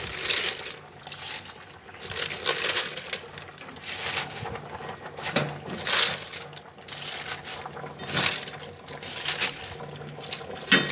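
Raw cabbage leaves rustling and crunching as they are scooped by hand from a metal bowl and dropped into a glass pot, in irregular bursts with a few sharper crackles.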